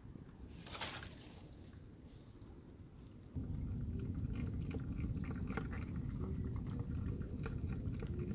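Outdoor waterside ambience: a brief hiss about a second in, then from about three seconds in a steady low rumble with scattered small clicks.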